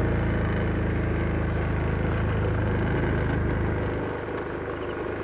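Small motorcycle engine running steadily as the bike rides along, easing off about four seconds in. A faint high beep repeats about three times a second through the second half.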